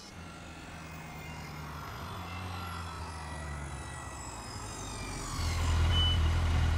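Motorcycle engine sound effect in a cartoon: a steady low engine hum with a faint high whine that slides slowly downward. It grows louder about five seconds in as the bike comes close.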